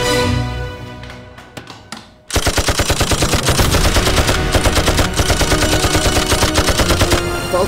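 Music fades out, a few sharp clicks are heard, then a bit over two seconds in an anti-aircraft heavy machine gun opens fire suddenly in one long rapid burst that keeps going.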